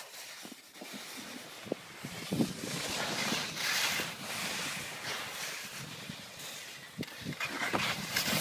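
Skis sliding and scraping over snow, a hiss that swells and fades as the skiers turn, with wind buffeting the microphone and a few short knocks.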